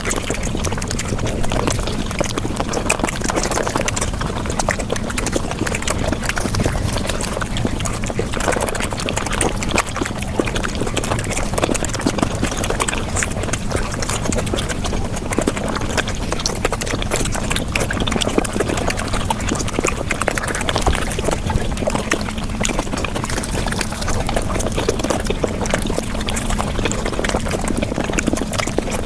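Close-miked chewing and mouth sounds of someone eating flatbread, played about five times fast so the smacks and clicks run together into a dense, unbroken rapid patter.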